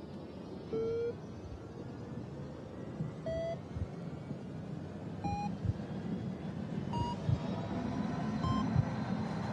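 Five short electronic beeps, each higher in pitch than the last and coming a little sooner, over a low rumbling drone that slowly swells: a tension-building sound-design cue.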